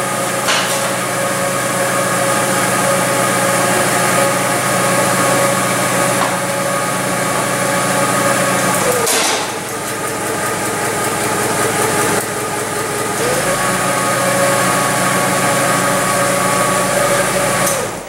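Forklift's four-cylinder spark-ignition engine idling steadily. About nine seconds in there is a click and the engine note sags as the number 4 spark plug wire is pulled, a simulated misfire with that cylinder dead. About four seconds later the engine returns to its normal idle.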